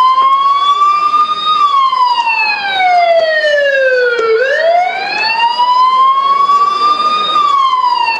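Siren in a slow wail, sweeping up and down in pitch: it rises, falls over about three seconds, rises again, and cuts off near the end.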